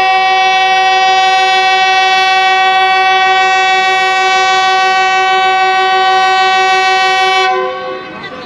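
Air horn of a GE GEU-20 diesel-electric locomotive sounding one long, steady blast of several tones at once, cutting off about seven and a half seconds in. It is the departure horn as the train sets off.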